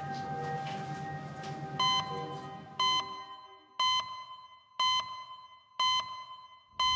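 Sharp electronic beeps, one each second, each a bright tone that starts suddenly and dies away, ticking off the seconds of an on-screen clock. There are six of them, starting about two seconds in. Before the first beep a soft, sustained musical drone plays and then fades out.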